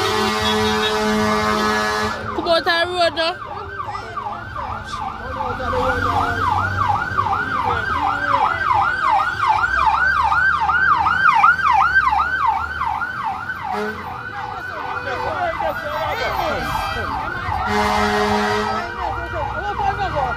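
Fire engine siren in a fast yelp, wailing up and down about three times a second. A steady horn tone sounds at the start and again near the end.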